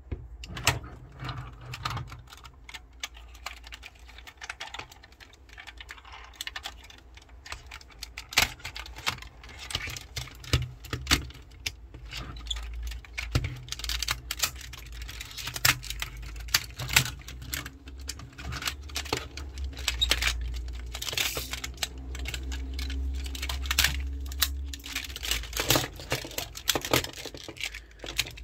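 Plastic parts of a Tobot transforming toy car clicking and snapping as they are folded between car and robot form: irregular clicks and clacks, some sharp, over low rubbing and handling noise.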